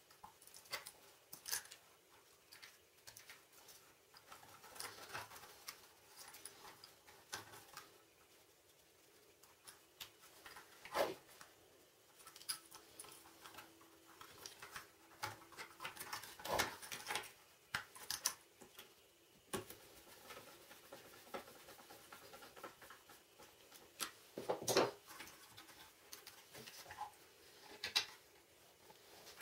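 Hands handling wires, plastic plug-in terminal connectors and a small circuit board: faint scattered clicks, taps and rustles, with a few sharper clicks spread through.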